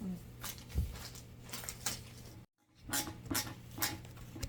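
Scattered light clicks and taps of screws and small hardware being handled while assembling a cabinet, over a steady low hum, with a brief silent gap about halfway through.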